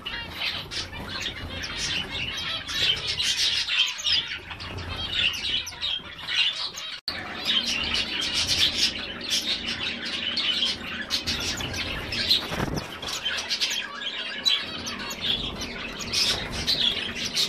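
Gouldian finches and star finches calling: a dense, continuous stream of short high chirps and tweets, many overlapping.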